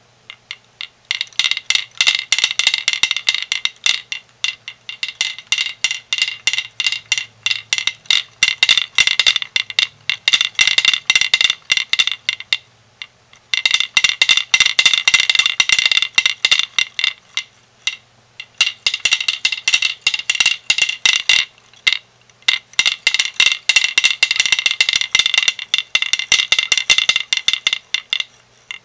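Hand-held wooden pecking-rooster toy being worked, its wooden roosters clacking rapidly against the board in a dense, ringing rattle. There are short breaks about 13, 18 and 22 seconds in.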